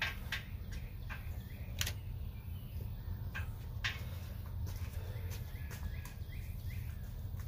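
Steady low rumble with scattered sharp clicks and, near the middle and later, a few faint short chirps; no speech.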